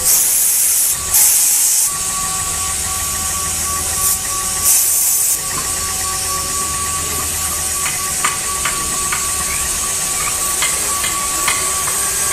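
CNC router running: a steady high hiss with a thin steady whine. Three louder bursts of hiss come in the first six seconds, and a few light clicks follow later.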